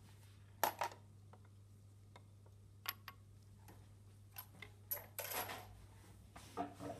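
Faint, irregular light clinks and taps of a pipette against a small glass reagent bottle as copper chloride solution is drawn up, over a steady low electrical hum.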